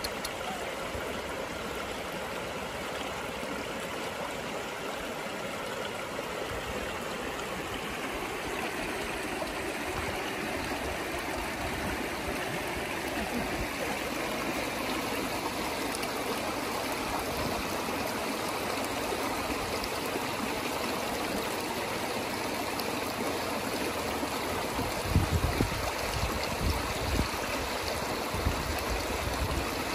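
River water running in a steady rush, with a few dull low bumps near the end.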